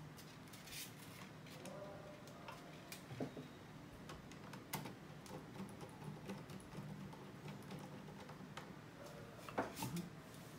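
Small clicks and ticks of a screwdriver working the screw terminals on a solar charge controller's terminal block, irregular and faint, with a louder knock about a second before the end.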